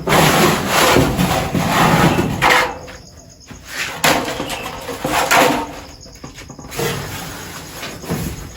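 Loud bursts of rough scraping and rubbing, like wood being handled or dragged. The longest runs for about two and a half seconds, with two shorter bursts after it.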